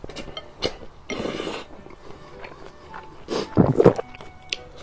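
Close-miked eating sounds: a man slurping in a mouthful of noodles, with a noisy slurp about a second in, then chewing with the loudest mouth sounds just after three seconds, among small clicks of mouth and chopsticks.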